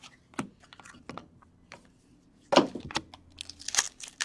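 Trading cards being handled with scattered light clicks and flicks, then a 2014-15 SP Authentic hockey card pack wrapper being torn open and crinkled from about two and a half seconds in.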